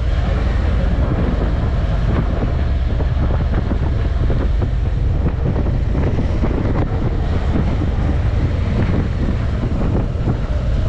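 A car driving, with steady wind noise on the microphone over the road and engine sound.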